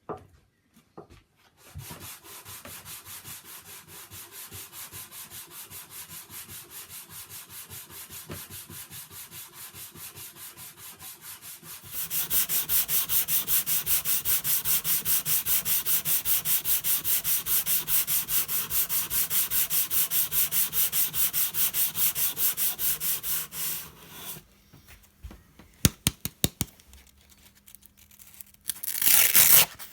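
Sandpaper on a hand sanding block rubbed back and forth over wood in quick, even strokes, about four a second. The strokes grow much louder about halfway through, then stop, followed by a few clicks and a short rustle near the end.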